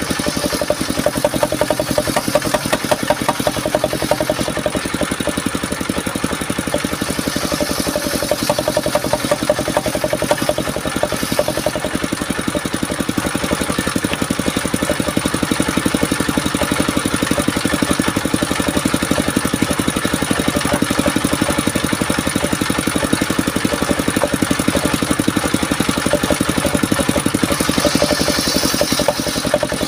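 Engine-driven circular saw bench running steadily with a fast, even engine beat, its large blade ripping wooden beams into planks now and then, with a brighter cutting hiss near the end.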